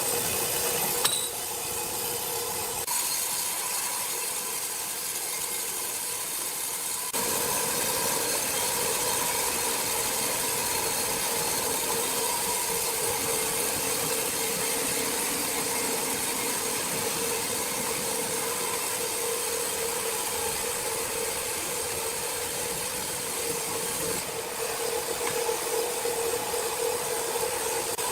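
Sawmill machinery running steadily, a constant mechanical hum with a hiss over it, changing abruptly a few times between shots.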